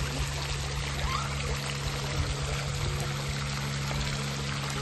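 Fountain jets splashing into a pond, a steady rush of falling water, with a steady low hum underneath.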